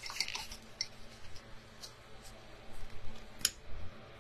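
Faint scattered taps and clicks of a paintbrush and painting supplies being handled on a tabletop, with one sharper click about three and a half seconds in.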